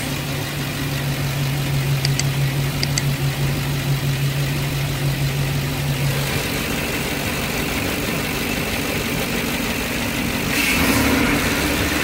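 Ford 5.4-liter V8 idling steadily on a newly fitted electronic throttle body. The note changes about halfway through and grows a little louder near the end.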